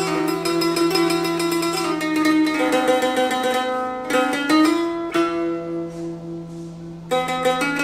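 Electrified simsimiyya lyre played solo with a plectrum: quick runs of plucked notes in an Arabic scale over a steady low hum. About five seconds in the playing thins to one note picked over and over, then a sharp pluck brings back the fast runs near the end.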